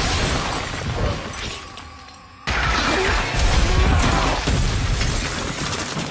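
Movie sound effects of blasts with debris shattering and crashing, mixed with music. A loud burst at the start dies away over about two seconds, then a sudden loud crash comes about two and a half seconds in and carries on.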